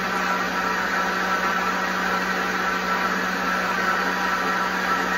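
Vitamix high-speed blender running steadily on speed 8, liquefying soaked almonds, dates and water into almond milk: an even motor whir with a constant low hum beneath it.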